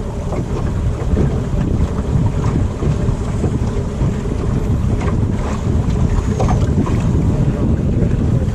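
Wind buffeting the microphone in a steady low rumble, with water washing around a small boat.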